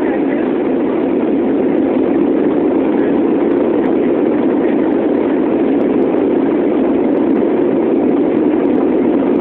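Steady drone of a jet airliner's engines and rushing air, heard inside the passenger cabin after takeoff.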